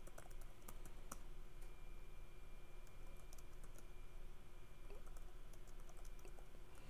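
Computer keyboard typing: irregular, faint key clicks over a low steady hum.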